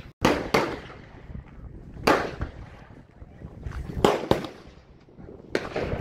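Gunshots on a firing range: eight sharp reports in quick pairs about every two seconds, each with a short echo.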